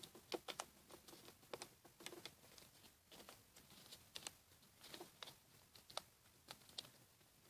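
Faint rustling and soft scattered ticks of a sheet of paper being folded and creased by hand on a wooden tabletop.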